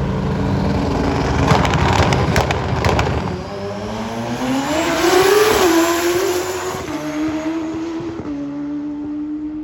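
Drag-racing motorcycle engine at full throttle, with sharp crackles a couple of seconds in. Its pitch rises, then drops in steps near the end.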